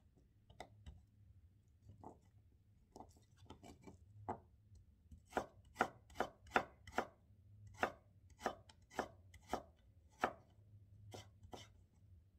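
Chef's knife cutting stacked slices of Korean radish into thin matchsticks on a wooden cutting board: sharp knocks of the blade on the board, scattered at first, then about two a second from around five seconds in, thinning out near the end.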